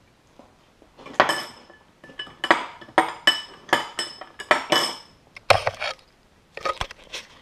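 Metal spoon stirring a milky drink in a glass tumbler, clinking against the glass at about three strikes a second with a short bright ring after each. A heavier knock follows, then a few more clinks.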